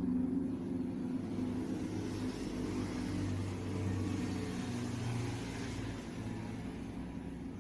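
A low, steady mechanical hum, like a motor running in the background.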